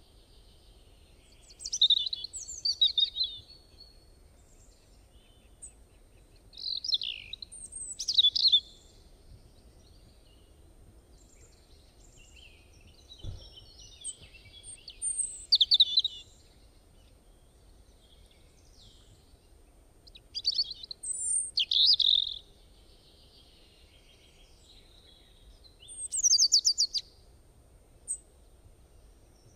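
Small birds chirping and trilling in short, high phrases, five bursts of song spaced about five to six seconds apart.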